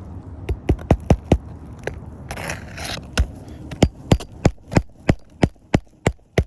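Hammer striking roofing nails to reset asphalt shingles: a quick run of blows, a scraping rustle partway through, then an even series of about three blows a second.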